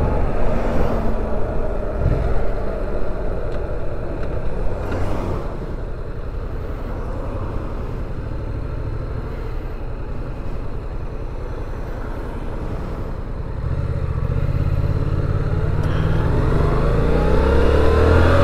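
Yamaha MT-07 parallel-twin engine with wind and road rush on the rider's camera mic. The engine eases off and sits at a lower rumble through the middle as the bike slows. From about two-thirds in it picks up, its pitch rising as it accelerates away.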